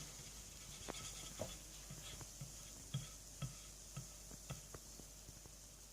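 Faint, irregular light taps and scratching, about one to two a second, as glue is dabbed and spread on a small craft piece.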